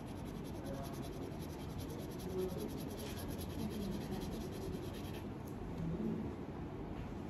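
Crayon rubbing on paper in quick back-and-forth coloring strokes, stopping about five seconds in.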